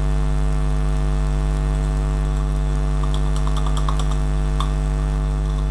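Steady electrical mains hum carried on the recording, with a run of light keyboard clicks about three to five seconds in as an address is typed.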